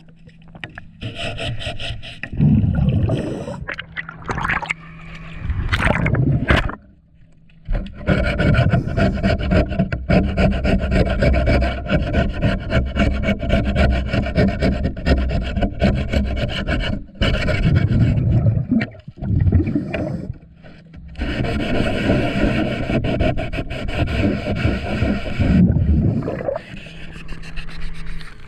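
Scrub pad rasping against a power boat's fouled hull underwater in rapid back-and-forth strokes, loud and gritty, as the growth is scoured off. The scrubbing breaks off briefly about a quarter of the way in and again past two-thirds.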